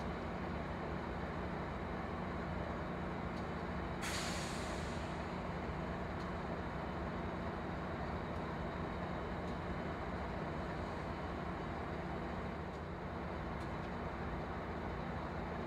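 Diesel locomotive standing and idling with a steady low hum. About four seconds in, a sudden burst of compressed-air hiss from the air brakes fades away over about a second.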